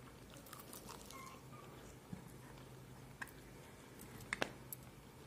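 Quiet close-up chewing of crispy grilled chicken, with a few sharp clicks about three and four seconds in.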